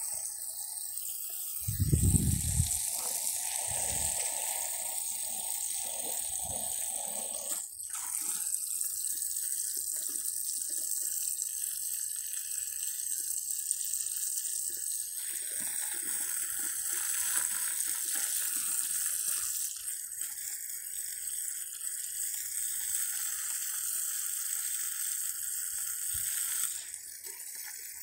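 Water streaming and splashing onto plants being watered: a steady hiss that changes in tone several times as the flow shifts. A low thump about two seconds in is the loudest moment.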